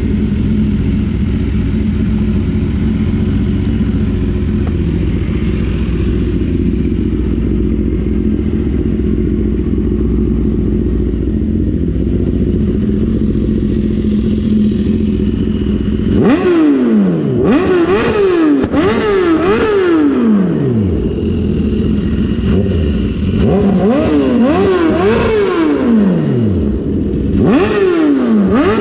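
2014 BMW S1000RR's inline-four engine idling steadily at a standstill. From about halfway through it is revved hard in quick throttle blips, several in a row, each rising sharply and falling back toward idle, with a short pause between two bursts of revving.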